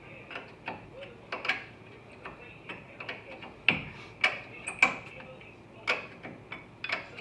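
Hand tools clicking and clinking on metal: irregular sharp clicks of varying loudness, a few louder ones around the middle.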